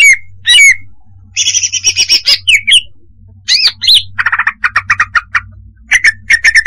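Female greater green leafbird (cucak hijau) calling: a varied run of chirps and falling whistled notes, a scratchy chatter, then a quick string of short clipped notes, over a faint low hum.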